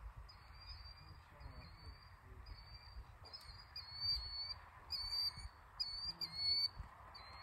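Small birds calling: a run of short, high, even-pitched notes, about two a second, louder in the middle.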